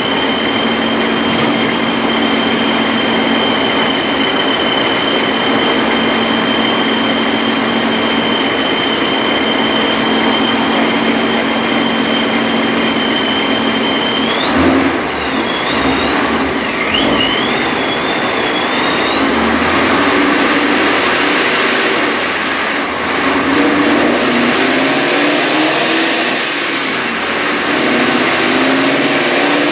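Supercharged, forged-internals 5.0 V8 of a 2016 Ford Mustang GT with a Vortech JT-B supercharger running on a chassis dyno during a power pull. A high whine sits over the engine and roller noise: it is steady for the first half, wavers up and down around the middle, and climbs in pitch in the second half.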